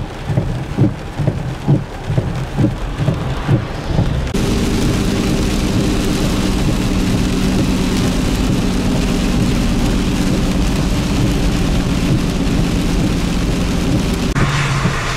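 Heavy rain and road noise heard from inside a moving vehicle. For the first four seconds or so there are irregular low thumps; then a steady rushing of tyres on the wet road and rain, with a low engine and road hum, gets a brighter hiss near the end.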